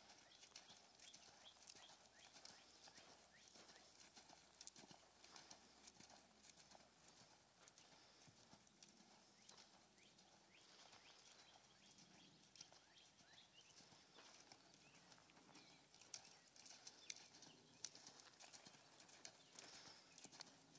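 Faint hoofbeats of a horse loping over a sand arena: soft, irregular thuds and small clicks.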